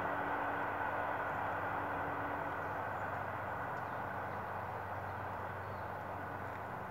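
Passenger train heard receding into the distance, a steady rumble of wheels on rails slowly fading.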